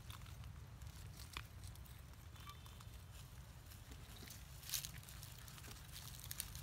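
Dry leaves crackling and rustling in a few short bursts, the loudest about two-thirds of the way through, over a steady low rumble.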